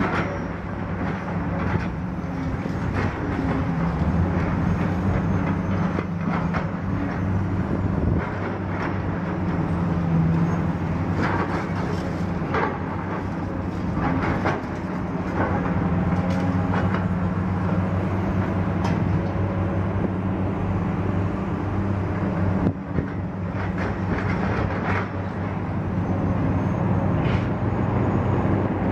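Steady low engine drone of heavy vehicles, with irregular knocks and rattles scattered through it.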